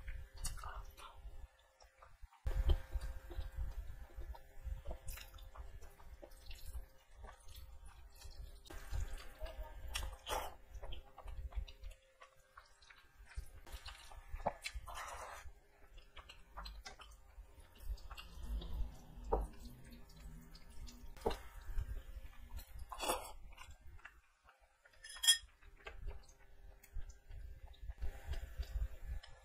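Close-up chewing and wet mouth sounds of someone eating rice and chicken curry by hand, with many short smacks and clicks scattered throughout.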